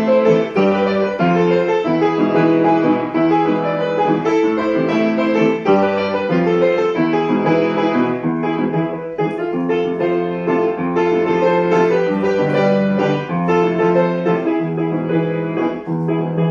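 Instrumental piano music: sustained notes and chords changing every half second or so, with no singing.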